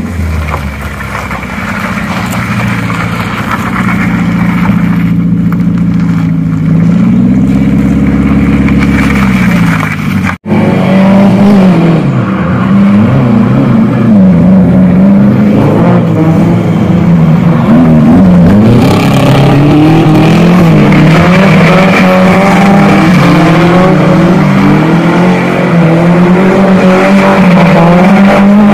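Loud Toyota KE70 Corolla four-cylinder engine revving hard, its pitch rising and falling over and over as the car is thrown around a cone. The sound cuts out for a split second about ten seconds in.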